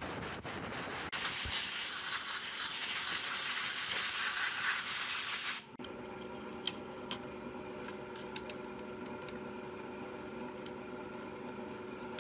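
Compressed-air blow gun blasting air over a TV circuit board: a quieter hiss, then a loud, steady hiss from about a second in that cuts off suddenly just before the middle. After that come a few faint clicks as a metal tool works at the board's tuner module.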